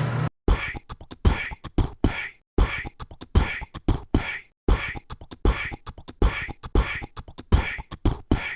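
Beatbox-style percussion loop: deep kick thumps alternating with sharp snare-like hits, about two beats a second, cutting off abruptly at the end.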